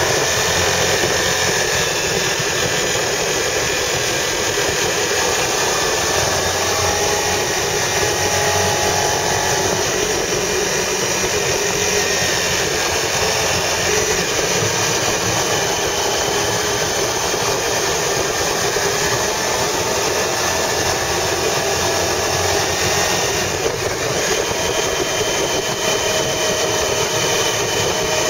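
Car engine running and tyre and road noise, heard from inside the moving car's cabin, steady with the engine pitch drifting slightly up and down.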